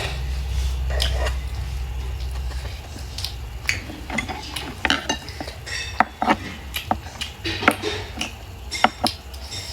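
Eating utensils clinking and scraping against a dish as food is picked up, a run of sharp separate clicks that thickens in the second half, over a low rumble in the first few seconds.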